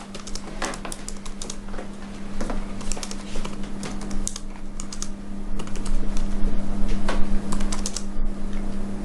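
Typing on a laptop keyboard: quick, irregular key clicks, over a steady low hum.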